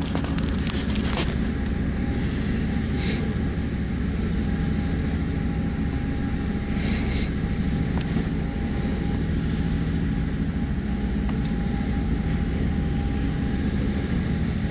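A motorboat's engine running steadily under way, a constant low drone, with a few brief splashes of water against the boat as it rides through big waves.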